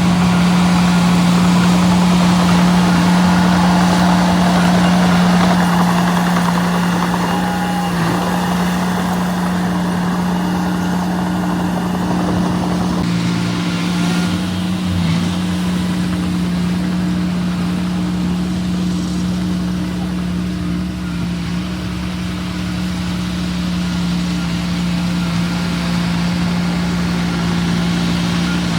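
Diesel engine of a small bulldozer running steadily at working speed, with a constant low drone. The engine and machine noise is busier in the first half and eases a little about halfway through.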